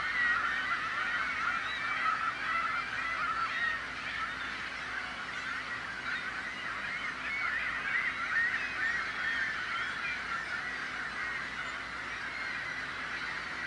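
A large flock of gulls calling all at once, many short cries overlapping in a continuous din.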